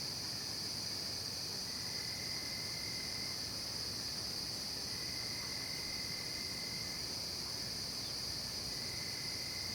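Night chorus of crickets and other insects singing steadily at a high pitch. A second, lower trill joins three times, each time for about two seconds.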